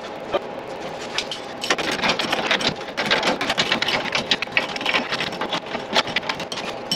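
Hand ratchet wrench clicking rapidly as the nuts on the leaf-spring U-bolts at the rear axle are run down, getting louder and busier from about two seconds in.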